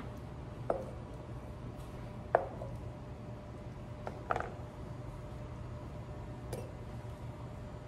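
Empty glass pint canning jars and a metal jar lifter set down on a wooden cutting board: a few hard knocks and clinks about two seconds apart, the loudest near the middle and a faint one near the end, over a low steady hum.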